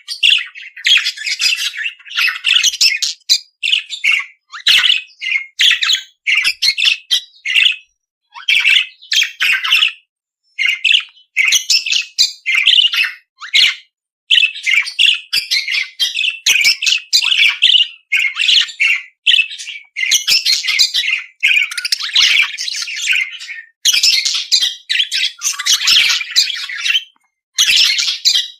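Budgerigar chattering and warbling in quick, scratchy runs of chirps and squawks, broken by short pauses.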